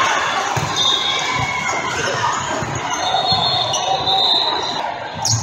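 Indoor volleyball being played, with several dull thuds of the ball being struck. Underneath is a steady hubbub of crowd chatter echoing in a large hall.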